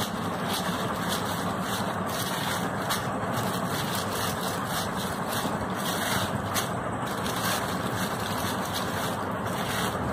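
Steady background noise with hum and hiss, over which a plastic sheet gives soft, irregular crinkles as dough is rolled on it with a rolling pin and then peeled away.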